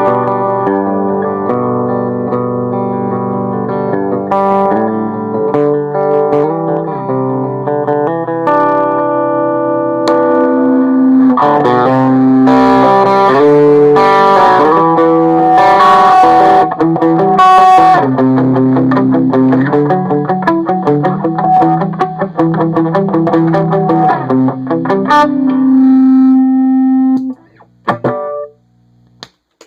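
Electric guitar played through a DIY Fender Tweed Deluxe clone tube amp built into an old 1950s Firestone radio cabinet: held chords at first, then busier, louder strumming and picking, stopping near the end with a couple of short notes after.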